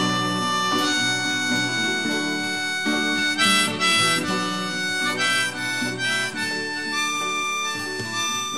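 Background music: an instrumental passage of a song with a melody of held notes, starting to fade out near the end.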